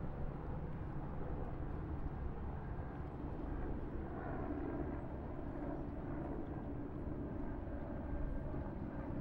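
A small fishing boat's engine running steadily under way, a low rumble mixed with the wash of waves and wind.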